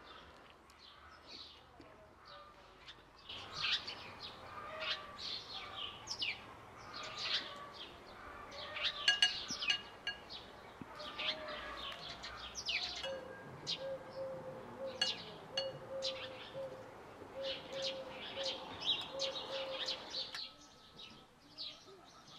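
Several birds chirping and singing in a busy chorus of short, high calls, fainter in the first three seconds and the last two. Through the second half a lower note repeats about twice a second.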